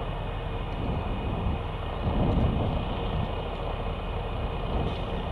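Jet engines running, heard from a distance: a steady low rumble with a high whine on top, swelling briefly about two seconds in.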